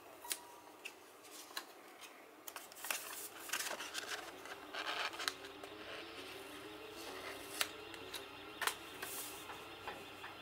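Plastic wrapping being picked at with a fingernail and peeled off a metal Blu-ray steelbook case: a run of crinkling, rustling and sharp clicks, busiest in the middle.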